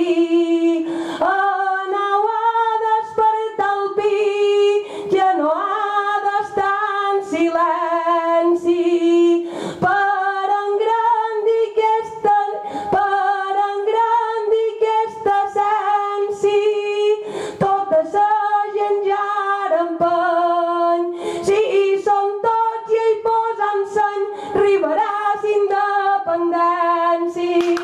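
A woman singing a Mallorcan glosa unaccompanied, improvised verse chanted to a simple melody of held notes with brief breaths between lines, ending on a long held note.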